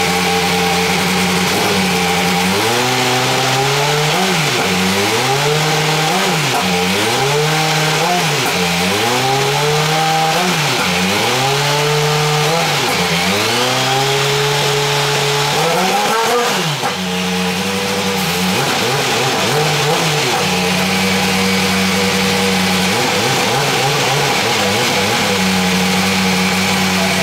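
Super Formula Dallara SF14's Toyota 2.0-litre turbocharged four-cylinder engine during its warm-up. It idles steadily, then is blipped over and over, each blip a quick rise and fall in pitch about every second and a half. After a bigger rev partway through it settles back to idle, with two more blips near the end.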